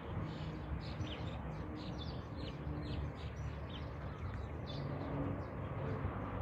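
Birds chirping, a rapid run of short high chirps, over a steady low rumble.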